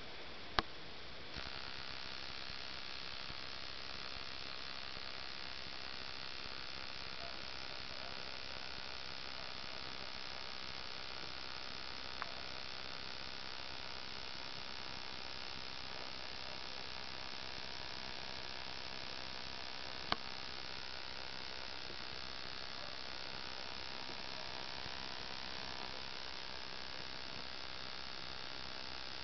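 Bush-cricket (katydid) singing: a steady, unbroken buzz that switches on about a second in and holds level throughout. A few sharp clicks come over it, the loudest just before the song starts.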